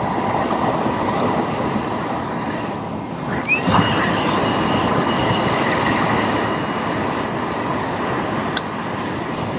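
Milwaukee M12 compact cordless blower running, blasting air into a campfire with a steady rush. About three seconds in it dips briefly, then spins back up with a rising whine that holds steady.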